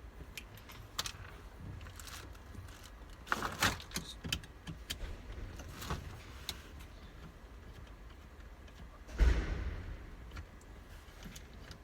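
Scattered small clicks and taps of a screwdriver and plastic steering-wheel trim being handled as the wheel's screws are taken out, with one louder knock and brief rustle about nine seconds in.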